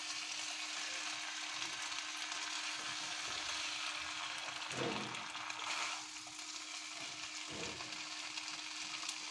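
Stir-fried macaroni and spaghetti sizzling steadily in a non-stick frying pan as they are tossed and stirred with a spoon, with a few knocks of the spoon against the pan about halfway through and later.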